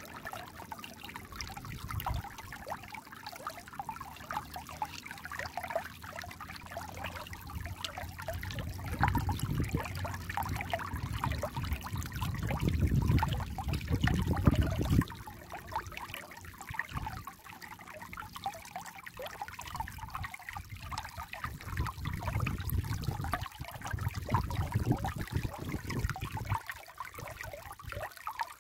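Shallow mountain stream trickling and bubbling over pebbles and rocks, with a dense patter of small splashes. A deeper low rumble swells in and out, loudest around the middle.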